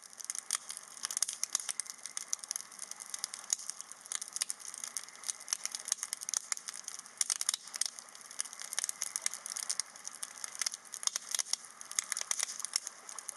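Dense, irregular crackling and crinkling with many sharp clicks.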